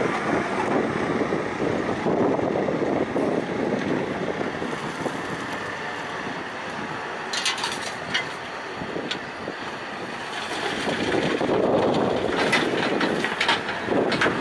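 Terex TLB890 backhoe loader's diesel engine working steadily, easing off a little in the middle and picking up again near the end. Sharp clattering knocks come about halfway through and again near the end.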